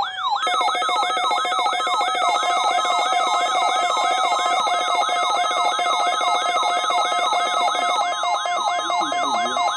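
Electronic emergency-alert alarm tone: a fast sweeping tone repeating about three times a second, layered over steady high tones.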